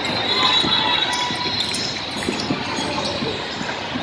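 Basketball being dribbled on a hardwood court, with sneakers squeaking on the floor, over the echoing din of a large hall.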